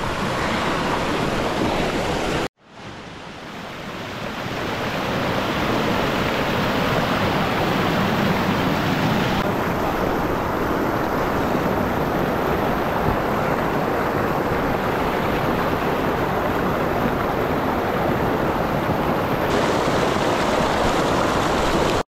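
Rushing water of a waterfall: a steady, dense hiss with no pitch. It cuts out abruptly about two and a half seconds in and builds back up over the next few seconds.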